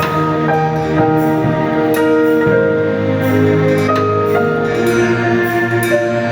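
Instrumental gospel music: held chords with bell-like notes changing about once a second, the lead-in before the choir starts singing.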